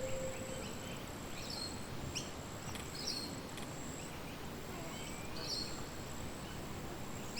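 Outdoor nature ambience: birds chirping every second or so over a steady high insect drone and a soft hiss. A held music note fades out just at the start.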